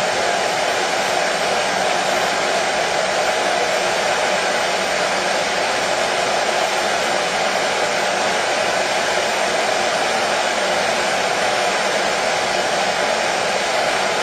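Electric hair dryer running steadily: an even rush of air with a faint hum from its motor.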